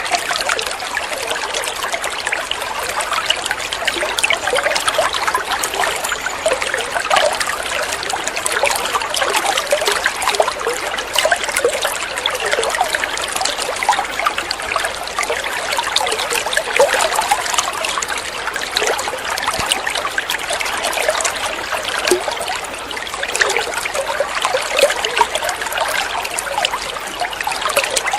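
Running water trickling steadily, a dense patter of small splashes and bubbling with no let-up.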